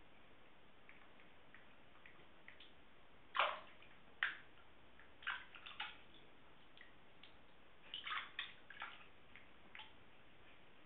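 Shallow bathwater splashing in short, scattered bursts as two hairless cats wade through it in a bathtub. The loudest splashes come about three and four seconds in, with a cluster of smaller ones near the end.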